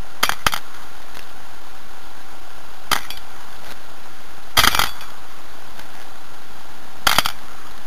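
Small steel balls dropping out of a flexed stainless-steel Möbius pendant into a jar lid, each landing with a sharp clink: two right at the start, one about three seconds in, a louder cluster a little later, and two more near the end, over a steady hiss.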